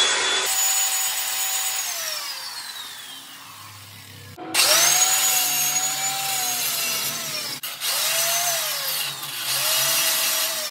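Corded angle grinder grinding the corners of a steel tube frame to bare metal for tack welding. About half a second in it is switched off and its whine falls away, then it starts again a few seconds later. Its pitch sags and recovers as the disc bites the steel, and it stops and restarts twice more in short bursts.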